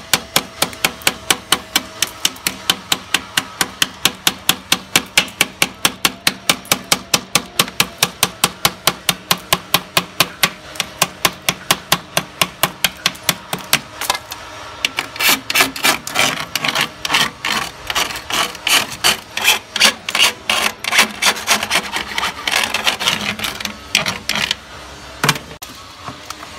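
A small ball-ended metal tool tapping on the edge of a green glass pane, about four sharp clicks a second, knocking out the glass along a scored circle to open a round hole. About halfway through, the strokes become louder, harsher and more irregular.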